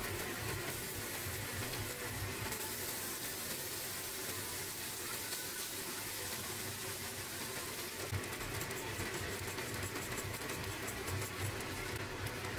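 Steady sizzling from a stainless steel frying pan as chopped garlic fries in hot oil and cooked rice is tipped in, the start of making garlic fried rice.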